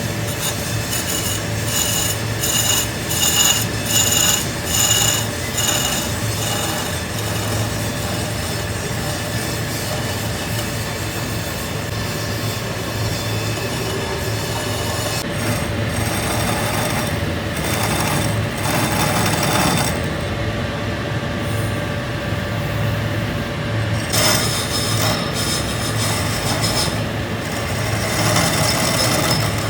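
Workshop machinery running with a steady hum while metal scrapes and rubs, as when a brass bell is turned and smoothed on a lathe. In the first few seconds a high ringing tone pulses about seven times in quick succession.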